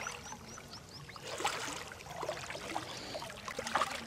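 Shallow water sloshing and splashing irregularly around the legs of people wading and dragging a fine mosquito net through a muddy pond.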